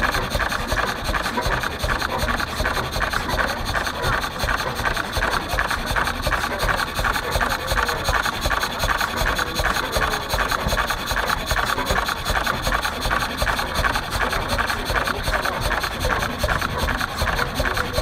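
1927 Reilstad single-cylinder engine running steadily, with a quick, even beat.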